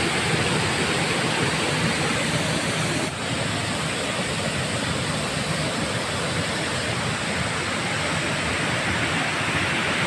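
A large waterfall in full flow, plunging over a rock cliff: a steady rushing of falling water, with a slight dip about three seconds in.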